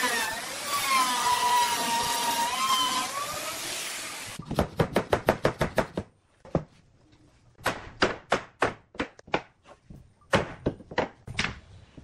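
A Makita router whining as it cuts along a wooden frame, its pitch dipping and recovering under load; it stops about four seconds in. Then a rubber mallet knocks the frame's joints together in quick runs of strikes, about five a second at first, then in shorter clusters with pauses between.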